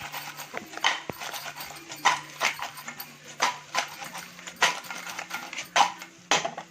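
A spatula stirring crab pieces in a frying pan, the shells scraping and clattering against the pan about every half second.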